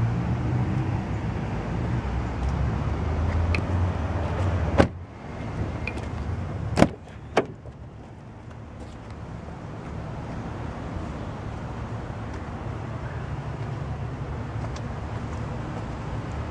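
Car doors being handled on a BMW 3 Series sedan. A door shuts with a sharp thud about five seconds in, and the steady low hum drops after it. About two seconds later come two sharp latch clicks, half a second apart.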